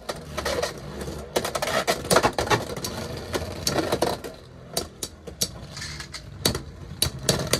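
Two Beyblade X tops, Tyranno Beat 4-80 Rush and Phoenix Wing 7-60 Rush, spinning in a plastic stadium. Their tips whirr steadily on the floor, broken by many sharp clacks as the tops strike each other and the stadium wall.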